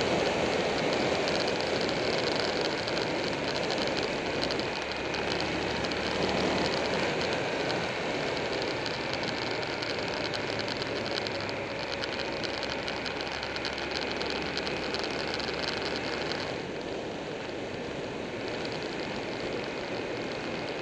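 Buell 1125R V-twin motorcycle under way, its engine running beneath a steady rush of wind and road noise. About three-quarters of the way through, the high hiss drops noticeably.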